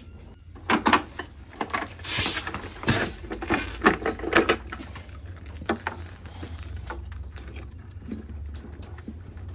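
Water splashing and sloshing in a plastic bucket, with knocks and clicks of handling, as a small submersible irrigation pump on its cable goes into the water. After about four and a half seconds it dies down to a few faint ticks over a low steady rumble.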